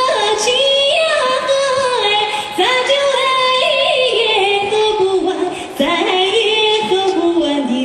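A young woman singing solo in a high, bright folk style, holding long notes that slide from one pitch to the next.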